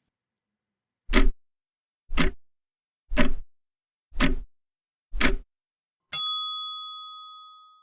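Countdown timer sound effect: five ticks about a second apart, then a bell-like ding that rings and fades slowly, marking that the thinking time is up.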